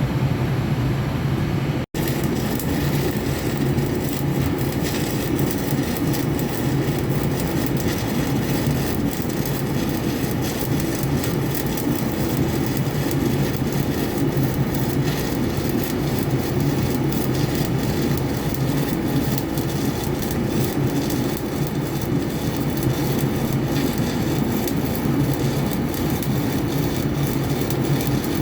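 Stick (SMAW) welding arc burning a 7018 electrode on a vertical joint: a steady crackling, frying hiss with a low hum underneath. It breaks off for an instant about two seconds in, then carries on.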